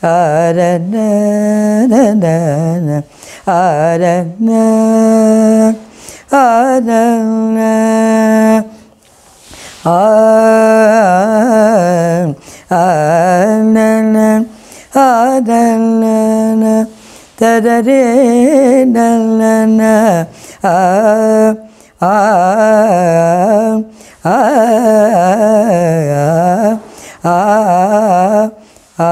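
An elderly woman singing alone without words, unaccompanied, in short phrases with brief pauses between them. Some phrases are long steady held notes and others are quick wavering ornamented turns, in the manner of devotional singing.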